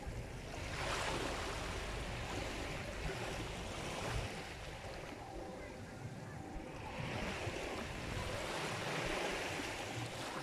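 Sea waves surging in and washing out in a steady hiss of surf, swelling twice: about a second in and again around seven seconds in.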